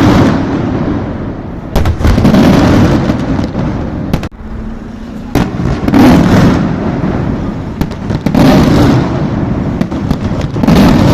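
Fireworks exploding: a loud bang every two to three seconds, five in all, each followed by a long crackling, rumbling tail.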